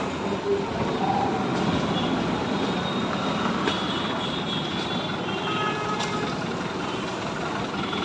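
Steady city street traffic noise: engines and tyres making a continuous hum, with a few faint short high tones over it.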